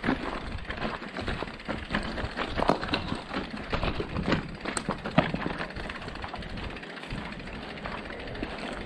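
Mountain bike ridden over rough gravel and track ballast: steady tyre noise with frequent irregular rattles and clicks from the bike.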